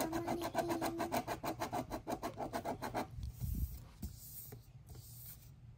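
Multi-colour ballpoint pen scribbling rapidly back and forth on a paper sheet, about ten strokes a second, stopping about three seconds in. A soft low thump follows as the sheet of paper is slid and turned on the desk.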